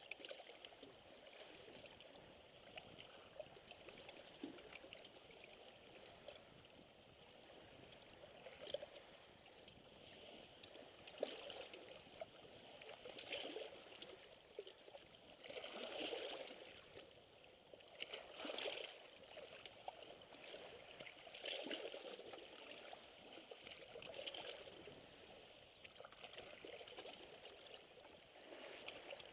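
Small waves lapping and splashing against shoreline rocks, faint, swelling in irregular surges every two to three seconds.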